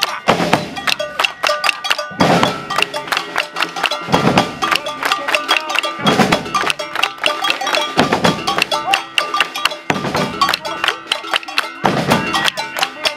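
Maracatu percussion ensemble playing a dense street rhythm on drums, with sharp clicking strikes over it and a deep bass-drum accent about every two seconds.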